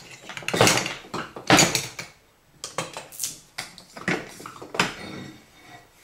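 Workbench clatter of metal tools and parts being picked up and set down: five or six short, sharp bursts over several seconds.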